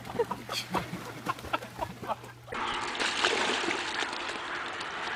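Water splashing and sloshing as a dog thrashes at the edge of a swimming pool, in short irregular splashes. About two and a half seconds in it changes abruptly to a steady rushing hiss of water as a dog swims in a river.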